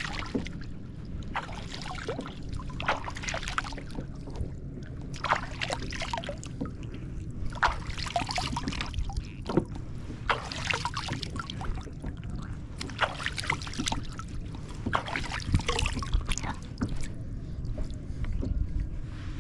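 Small waves slapping and sloshing against a kayak's hull in irregular short splashes, several a second, over a steady low rumble.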